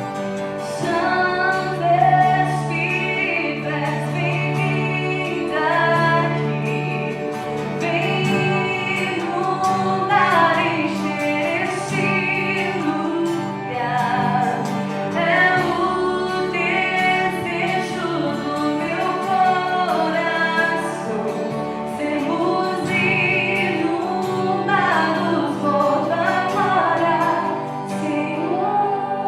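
A gospel worship group singing a slow, reflective praise song, voices over acoustic guitar accompaniment.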